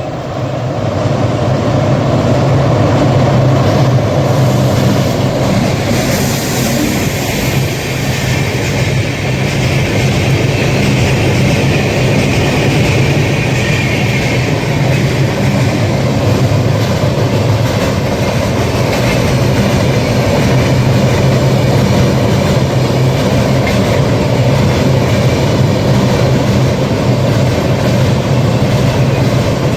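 A train passing close by at speed in a long, steady run, its wheels clattering over the rails with a deep rumble.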